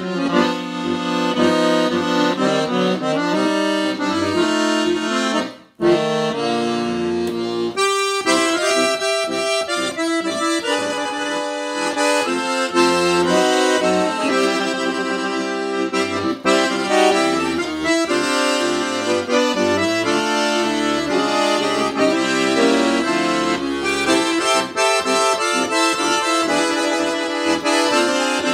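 Ottavianelli piano accordion with a four-reed treble (16', 8', 8', 4') playing a tune: melody on the treble keys over a rhythmic bass-and-chord accompaniment from the left-hand buttons. A brief break comes about six seconds in.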